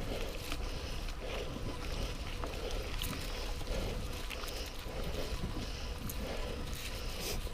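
A mountain biker's heavy breathing, panting in a steady rhythm of quick breaths, over low wind rumble on the microphone, with occasional sharp clicks and knocks.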